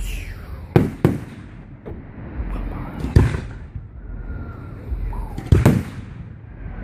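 Aerial firework shells bursting close overhead: sharp bangs, a pair about a second in, one about three seconds in and another quick pair past the middle, with faint falling whistles between them.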